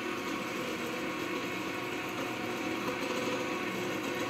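Electric can opener motor running steadily as it cuts open a can of evaporated milk.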